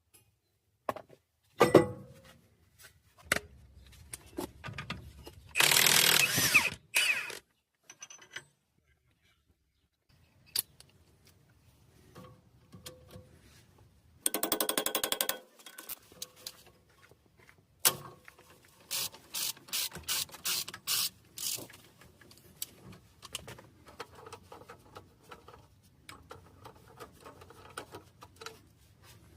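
Hand and power tools working on a car's front brake and hub: scattered clicks and metal knocks, a short burst of fast rattling strokes about halfway through, and a run of ratchet-like clicking strokes later.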